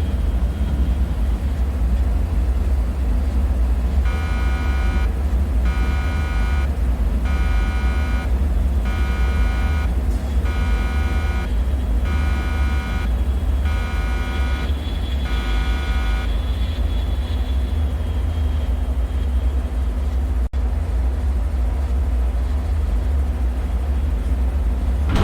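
A deep, steady rumbling drone. About four seconds in, a pitched electronic alarm tone starts beeping, roughly once a second, for about twelve seconds, then stops.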